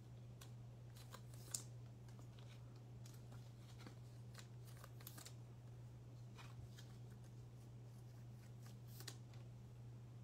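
Faint rustles and light ticks of trading cards being handled, one sharper tick about a second and a half in, over a steady low hum.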